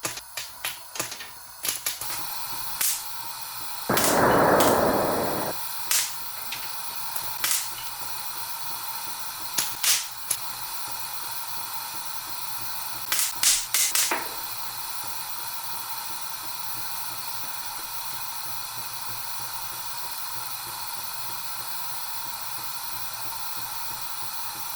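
Steady sizzling hiss of food frying in a hot pan, with scattered sharp pops and crackles. About four seconds in comes a louder, lower rush lasting about a second and a half.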